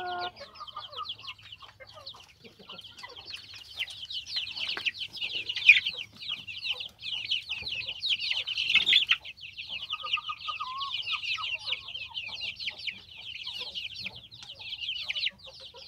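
A flock of half-grown chicks peeping constantly, many high-pitched cheeps overlapping, with one short lower call about two-thirds of the way through.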